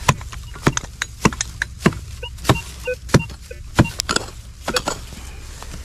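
A digging tool chopping and scraping into dirt to dig out a metal detector target, in about fifteen sharp, irregular strikes. A few short electronic beeps from the metal detector sound in the middle.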